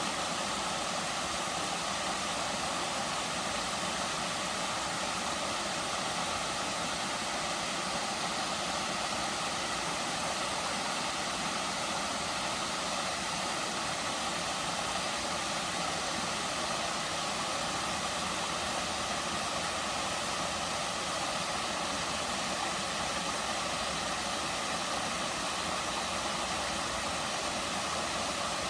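Gentle waterfall running steadily: an even, continuous rush of falling water with no change.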